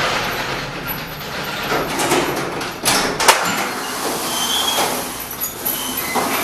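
A glass-paned door being opened, its latch clicking twice about three seconds in, over a steady rushing hiss.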